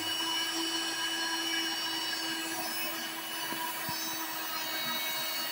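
Electric stand mixer running steadily with a constant motor whine, its beaters turning through brownie batter.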